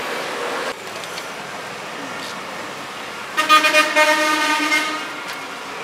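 A vehicle horn blows once, a steady note held for about a second and a half a little past halfway, over a constant hum of street noise.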